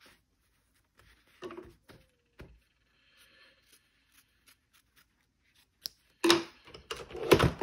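Scissors snipping fusible interfacing on a leather sleeve, amid faint handling clicks, followed by louder rustling and handling of the interfacing strips from about six seconds in.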